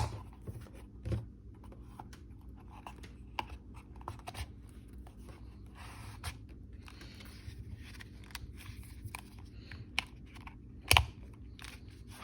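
Small objects being handled: scattered light clicks and rustling, with a sharper knock about a second in and a louder one near the end.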